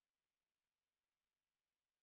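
Digital silence: only a very faint, steady noise floor.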